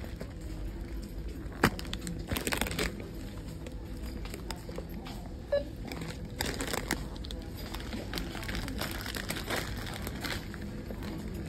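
Plastic instant-noodle packet crinkling in short spells as it is handled, with one sharp click a little under two seconds in, over a steady low background hum.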